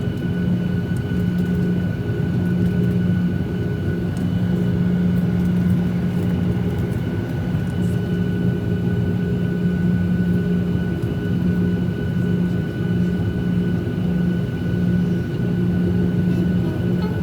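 Cabin noise inside a Boeing 737-800: the CFM56-7B jet engines' steady drone, with a low hum and a thin high whine over the rushing air noise.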